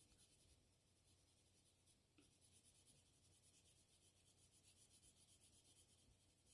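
Faint scratching of a colored pencil shading on paper, quick back-and-forth strokes that start about two seconds in.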